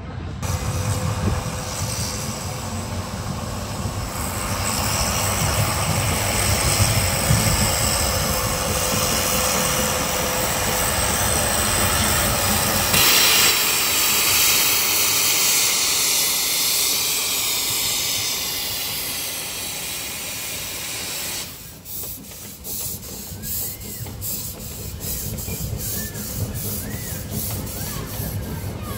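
Steam train running past: a continuous rumble of wheels with hissing steam, the hiss loudest about halfway through. About 21 seconds in, the rumble drops away abruptly and a lighter run of regular clicks follows.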